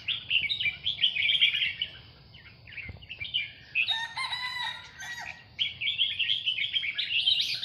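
Caged red-whiskered bulbuls of a Burmese song line singing in repeated short warbling phrases. A rooster crows once about four seconds in.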